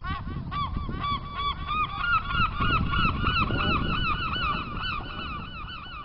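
A flock of gulls calling: many short, arched, honking calls in quick succession, overlapping one another, over a low rumble.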